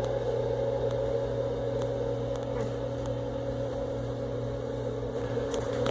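Steady machine hum, a low drone with a higher steady tone above it, with a few faint ticks.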